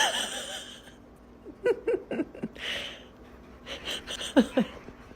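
A dog making breathy, wheezy noises, broken by short pitched yelps and a couple of quick falling whines.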